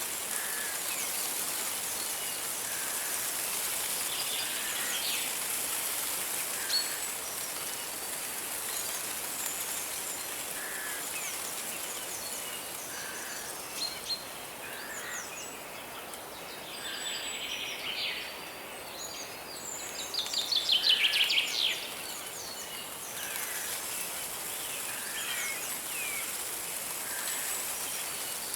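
Forest birds calling over a steady hiss of running water: a soft note repeated every second or two, scattered high chirps, and a loud rapid trill about twenty seconds in, the loudest sound.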